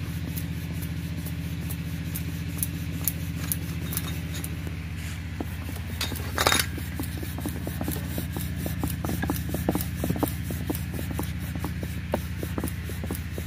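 Kitchen utensils being handled: light clicks and taps with some rubbing, growing frequent from about five seconds in, over a steady low hum. A brief rustling hiss comes about six and a half seconds in.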